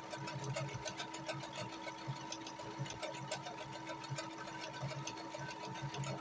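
Brother computerized sewing machine stitching programmed letters on its own: a steady motor whine with rapid needle clicking.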